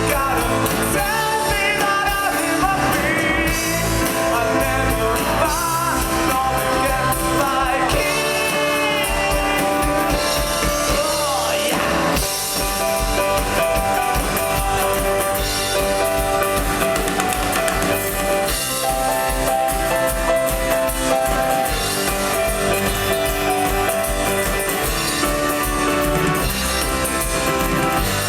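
Rock music played by a band with guitar and drums. A wavering vocal line is sung over roughly the first half; after a brief dip about twelve seconds in, steadier instrumental playing follows.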